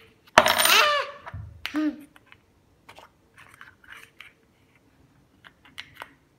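A small hard object dropped onto the table, clattering with a brief ring about half a second in, followed by a shorter knock about a second later; after that only faint clicks of the plastic egg being handled.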